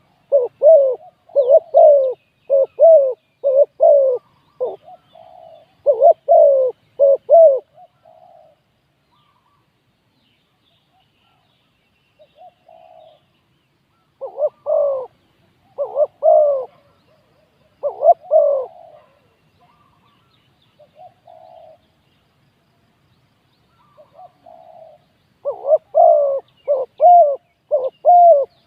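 Spotted doves cooing in quick runs of short, repeated coos, with a gap of a few seconds near the middle before the runs pick up again near the end. Faint high chirps of small birds can be heard behind them.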